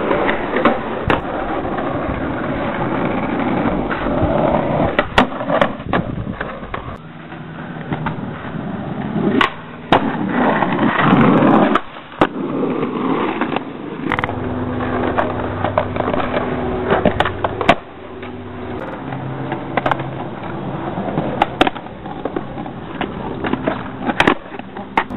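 Skateboard wheels rolling over concrete, broken again and again by sharp clacks of the board snapping, landing and striking ledges.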